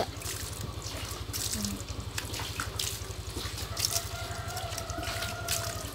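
Water running from a tap and splashing, with scattered drips and a steady low hum underneath.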